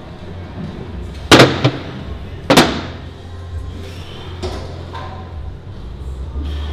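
Two loud metal clanks about a second apart, each ringing briefly: heavy steel dumbbells being set down.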